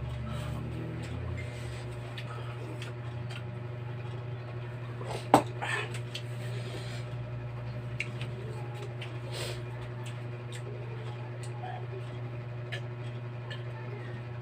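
Eating sounds: small clicks of utensils against a bowl over a steady low hum, with one sharp click about five seconds in.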